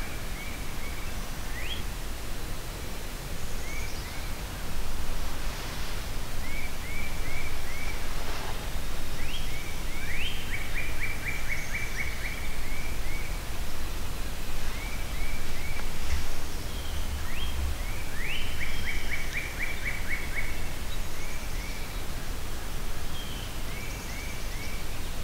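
A songbird singing repeated whistled phrases: short notes in little groups, quick upward slurs, and twice a fast run of rapid notes. A steady low rumble runs underneath.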